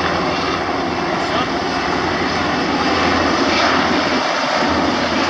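Military helicopters flying low overhead: a loud, steady rotor-and-engine noise that grows slightly louder.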